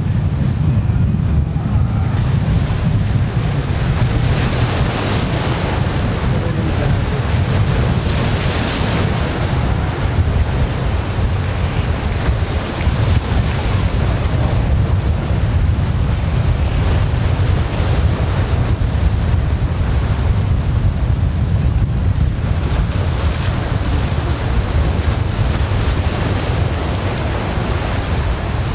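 Wind buffeting the microphone in a steady low rumble, with a brighter hiss that swells twice, about five and nine seconds in.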